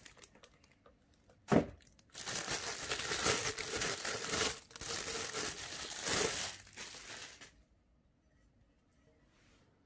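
Thin clear plastic bag crinkling as it is pulled off a new thermal mug, after a single sharp knock about a second and a half in. The crinkling stops about three-quarters of the way through.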